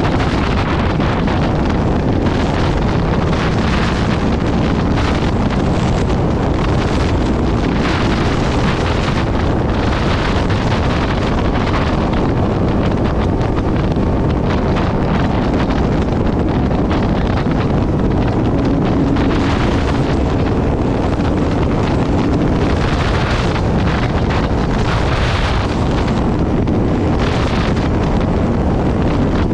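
Heavy wind buffeting on the microphone of a motorcycle ridden at highway speed, with the bike's engine and tyre noise running steadily underneath.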